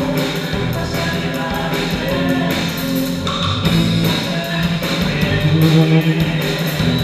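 A live band playing with a drum kit keeping a steady beat and electric guitars, with voices singing over them.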